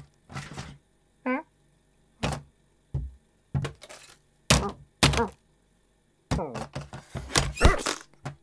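Cartoon sound effects: a run of separate thunks and knocks as a cat paws and bangs at a kitchen bin lid, with short strained cat vocalisations in between. A longer clattering stretch near the end, with the lid flipping open.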